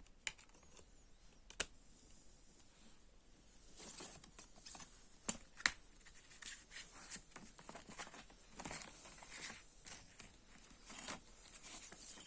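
CD jewel case and its plastic wrapping being handled: two sharp plastic clicks in the first two seconds, then from about four seconds in a run of crinkling and clicking.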